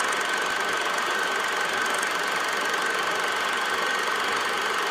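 Steady static-like hiss with a thin, steady high whine running through it.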